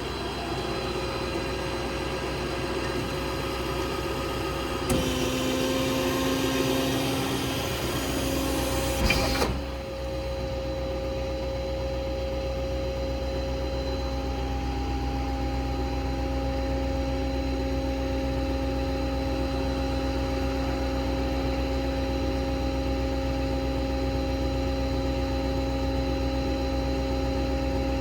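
Ford 6.7 Power Stroke diesel and crane hydraulic system running as a steady hum with a few constant tones. From about five seconds in, a louder rushing noise joins for about four seconds as the crane is worked, then stops suddenly, leaving the steady running.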